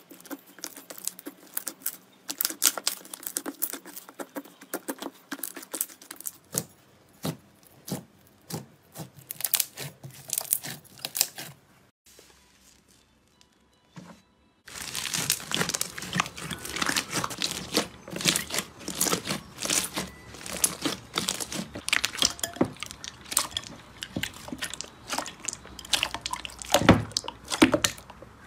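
Slime being stretched, squeezed and kneaded by hand, giving a run of sticky crackles, clicks and small pops. There is a short near-silent break about twelve seconds in, and after it the crackling comes thicker.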